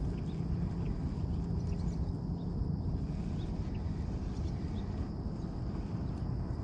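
Outdoor ambience on calm water: a steady low rumble with a faint, even high hum and scattered faint high chirps.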